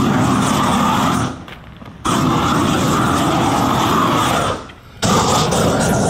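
Gas weed burner torch blasting its flame onto a wooden beehive box in three long bursts. It drops off briefly about a second in and again near the end.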